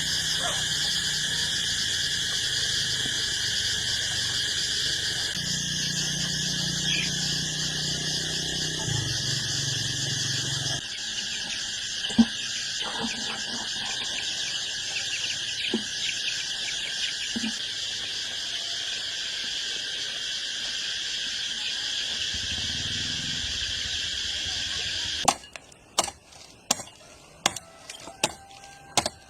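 A loud, steady high-pitched drone that cuts off suddenly about 25 seconds in, followed by sharp, separate strikes of an axe or knife chopping wood, roughly one every half-second to second.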